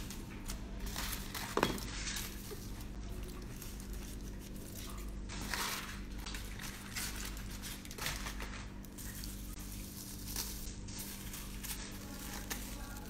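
Aluminium foil and plastic cling film crinkling and rustling as they are cut and peeled off a chicken roulade by hand, with a single knock about a second and a half in, over a steady low hum.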